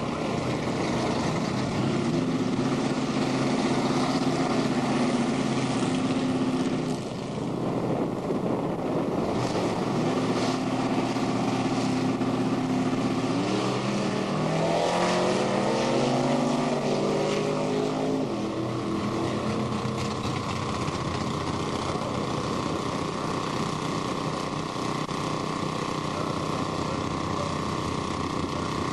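Drag racing car engines held at steady high revs on the starting line, with a brief dip about seven seconds in. About halfway through they launch, the pitch climbing in steps through the gears, then fading into a steadier, more distant drone as the cars run down the strip.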